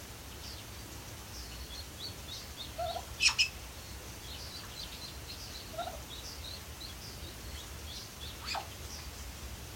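Many faint, short, high-pitched bird chirps, with two sharp knocks about three seconds in and another near the end, over a steady low hum.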